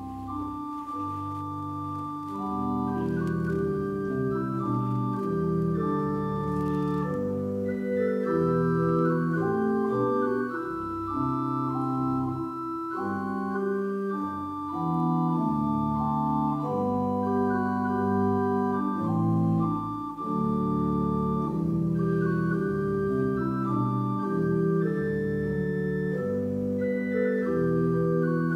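Organ playing sustained chords in a slow progression, getting fuller about two seconds in.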